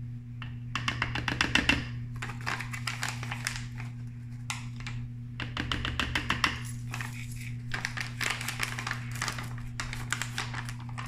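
Metal measuring spoon scooping and scraping powdered egg replacer in a paper bag and tipping it into a plastic food processor bowl: about four bursts of rapid clicks, scrapes and bag rustling.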